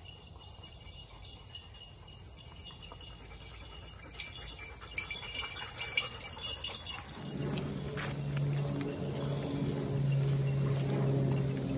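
Insects chirring steadily in summer woods, with scattered light clicks and jingles about four to seven seconds in. From about seven seconds a low steady hum sets in underneath.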